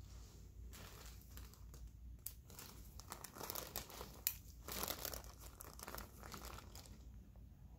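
Crinkling and rustling of surgical gauze handled by gloved hands, busiest in the middle, with a sharp click about four seconds in.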